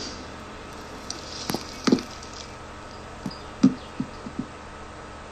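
A few scattered soft knocks and taps, two close together about two seconds in and a quicker run of four later on, over a steady faint hiss.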